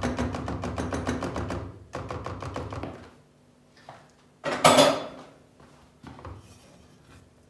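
A whisk beating thick hot pudding in a pot, rapid rattling strokes for about three seconds. About four and a half seconds in comes a loud clatter as a utensil is put down, followed by a silicone spatula scraping softly around the pot.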